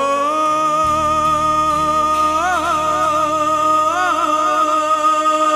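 Background music: one long held melodic note with ornamental turns twice, over a low steady drone that comes in about a second in.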